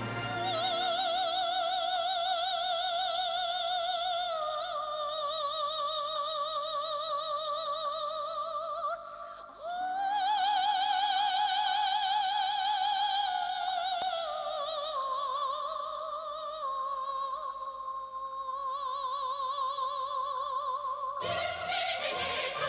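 A high soprano voice singing long held notes in operatic style, with a wide, even vibrato, gliding between a few pitches. It breaks briefly about nine seconds in.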